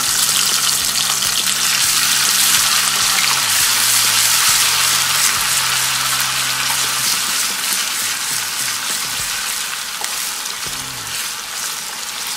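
Hot oil sizzling in a kadai as ginger-garlic paste fries with potato cubes and browned onions, stirred with a wooden spatula. The sizzle is loudest a few seconds in and eases off in the second half.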